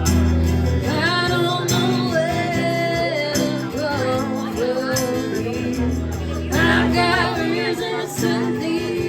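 A band playing a song, with a lead vocal sung over held bass and chord notes.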